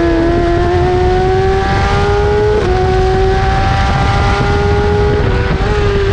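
BMW S1000RR inline-four engine running hard at high revs, its pitch climbing steadily, with a quick gear change dropping the note about two and a half seconds in and another brief dip near the end. Heavy wind buffeting on the microphone rumbles underneath.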